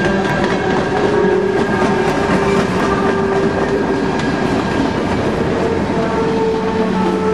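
Freight cars of a Norfolk Southern train rolling past: the running noise of steel wheels on rail, with steady ringing tones above it.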